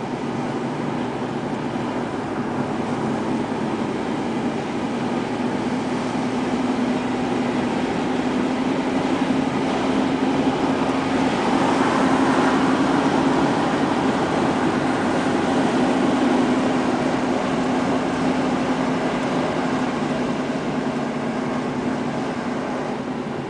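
Car engine and tyre noise heard from inside the cabin while driving, a steady rumble with a low hum that grows louder midway and eases near the end.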